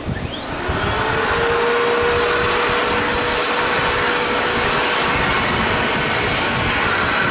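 Milwaukee M18 Fuel backpack vacuum switched on: the motor whines up to speed over about a second, then runs steadily with a loud rush of air.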